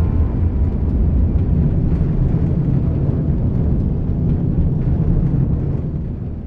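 Rocket engine roar at lift-off: a loud, steady, deep rumble that starts to fade near the end.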